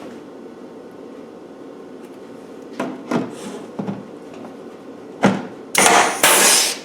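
A few light knocks as a metal panel is handled and positioned, then near the end two short, loud bursts of a power drill cutting, drilling rivet holes in the seat box panel.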